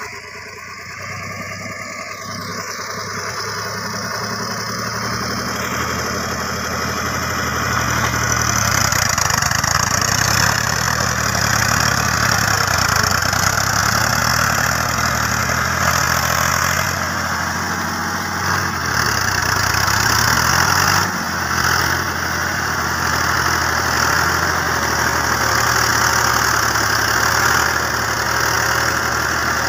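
Fiat 480 tractor's three-cylinder diesel engine running under load while it pulls a tillage implement through the flooded paddy's mud. It grows louder over the first ten seconds or so as it comes closer, then runs steadily close by.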